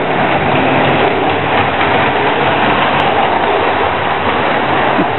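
Lionel O-gauge electric toy train running on its three-rail track: a steady mechanical running noise of motor and wheels with a low hum, passing close by about four seconds in.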